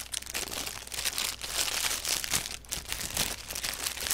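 Paper burger wrapper crinkling as it is unfolded by hand from around a burger, a steady run of many small crackles.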